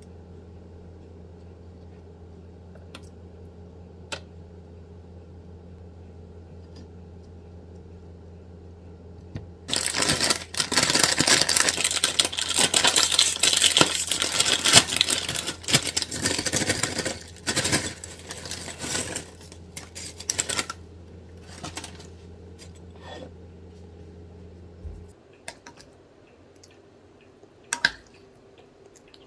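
A plastic potato chip bag crinkling loudly for about eight seconds as chips are tipped into a ceramic bowl, followed by a few shorter rustles. Near the end a spoon clicks against a glass dessert bowl.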